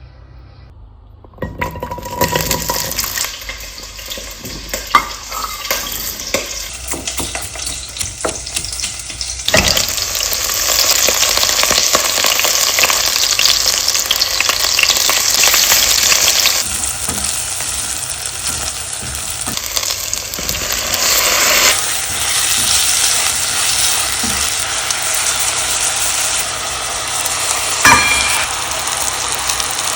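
Food sizzling as it fries in a pan, starting about a second and a half in, while a spoon scrapes and clicks against the pan as it is stirred. The sizzle grows louder about ten seconds in, and near the end a utensil strikes the pan with one ringing clink.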